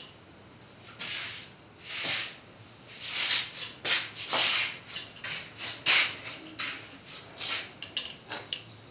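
A series of about a dozen short, irregular rubbing swishes, starting about a second in.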